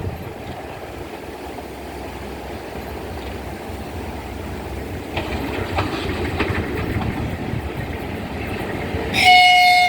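VL10 electric locomotive hauling a passenger train as it approaches: a rumble of wheels on rail that grows louder, with a few sharp clicks about halfway through. Near the end the locomotive gives a short, loud horn blast.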